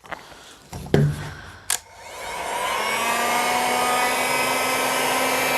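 A CROWN CT19007 2000 W electric heat gun is switched on after a few handling clicks. About two seconds in, its fan spins up with a rising whine, then blows a steady airy whir that is not loud.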